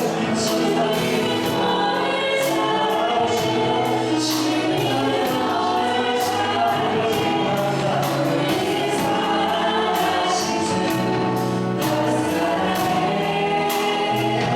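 Church praise team and congregation singing a gospel worship song with instrumental accompaniment, in a steady beat.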